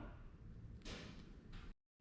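Near-silent room tone with a faint, brief hiss starting about a second in. The sound cuts out completely near the end.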